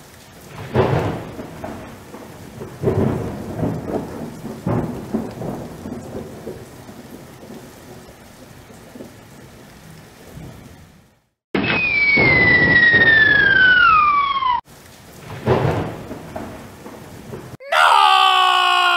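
Thunder-like explosion rumble, rolling, with loud swells about one, three and five seconds in that fade out. About eleven seconds in a single falling whistle plays for three seconds, followed by another rumble. Near the end comes a loud whine of several tones falling together.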